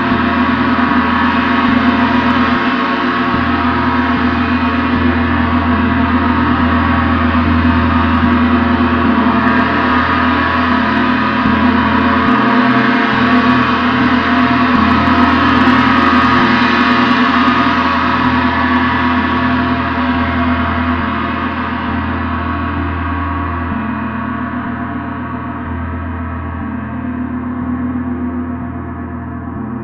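A gong sounding in a sustained, dense wash of many ringing overtones. Over the last ten seconds or so it gradually softens as its highest overtones die away.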